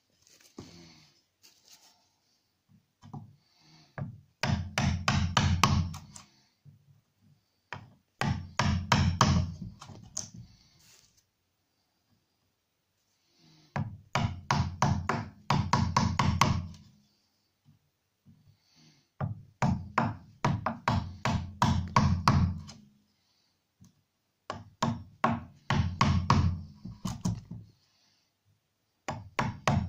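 Wood chisel struck with a hammer in quick runs of taps, chopping a notch out of the foot of a wooden cupboard frame upright. There are about six runs of several taps a second, each lasting one to three seconds, with short pauses between.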